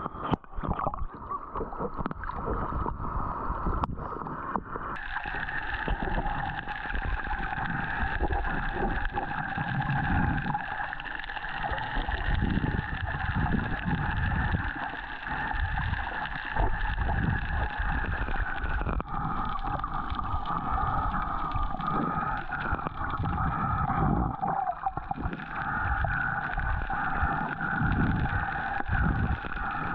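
Muffled sea water sloshing and surging around the camera, with a steady hum of boat motors over it, which sets in about five seconds in.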